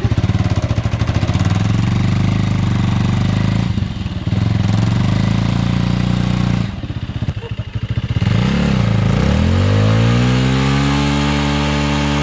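Motorcycle engine revving hard while the bike is stuck in soft sand and the rider tries to power it out. The revs dip twice, then climb and hold high near the end.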